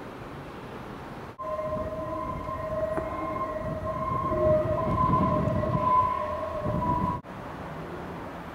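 A steady two-note mechanical whine over a low rumble that grows louder over a few seconds, then cuts off abruptly; before it, wind on the microphone.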